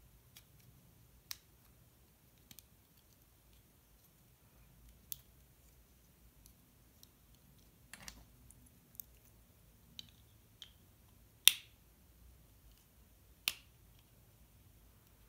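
Plastic Lego bricks being pressed together and handled: about ten scattered sharp clicks with quiet between them, one much louder than the rest about two thirds of the way through.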